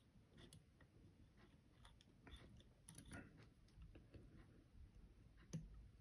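Near silence, with faint scattered clicks of a lever-lock pick tool working the levers of a five-lever padlock. One click about five and a half seconds in is a little louder.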